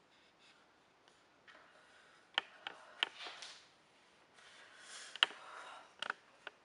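A person breathing hard through the mouth against the burn of habanero peppers, with several hissing breaths. Several sharp clicks come in among them.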